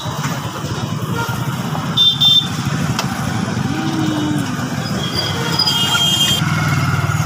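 Motorcycle engine running at road speed, heard from the pillion seat, with wind rushing past the phone. A short high beep about two seconds in, and another one around five to six seconds in.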